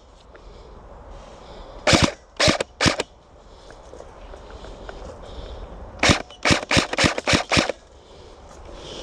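Airsoft rifle firing single shots: three shots about two seconds in, then a quicker string of about six shots a few seconds later.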